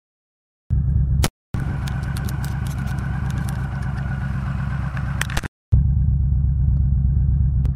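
Yamaha V Star 1300's V-twin engine idling steadily, with a run of sharp clicks and knocks about two seconds in. The sound cuts out completely at the start and drops out briefly twice more.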